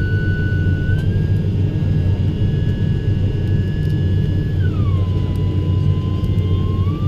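ATR 72-500 turboprop engines running on the ground, heard from inside the cabin: a steady low drone with a high whine on top. The whine steps up slightly about a second in, slides down in pitch around five seconds, and starts climbing again near the end.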